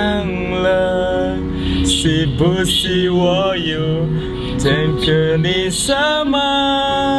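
A man singing a Chinese-language song in a car over music accompaniment, holding long notes near the start and again near the end.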